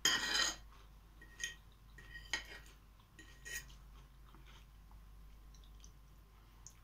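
Metal fork scraping and clinking against a china plate while scooping mashed potato. A louder scrape comes right at the start, then three short ringing clinks follow about a second apart.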